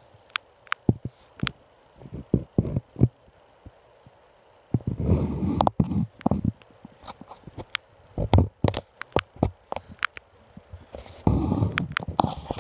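Screech owl and owlets shifting about inside a wooden nest box: irregular taps, knocks and scratchy scuffling of feathers and claws on wood, with longer bouts of scuffling about five seconds in and again near the end.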